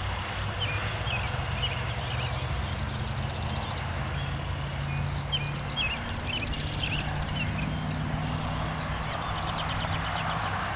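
Short high bird chirps now and then over a steady low hum and hiss of outdoor ambience.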